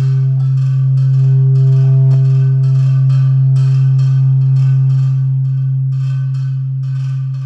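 Experimental electronic music built from found-object percussion processed electronically: a loud steady low drone with fainter held tones above it, under regular clicking strikes about twice a second.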